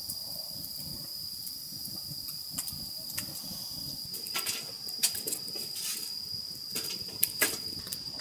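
Crickets chirring steadily in a high, even tone, with soft rustling and a few sharp clicks from about four seconds in.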